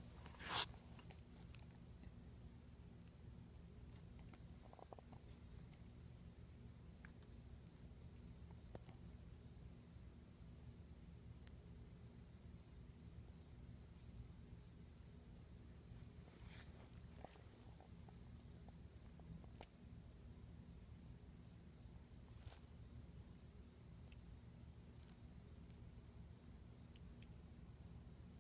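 Faint, steady high-pitched trilling of insects, with a low rumble of handling noise underneath and a brief bump about half a second in as the phone is moved.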